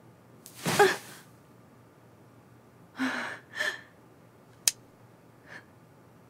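A woman's sharp, loud gasp about a second in, then two shorter breathy gasps a little later. A single sharp click comes near the end.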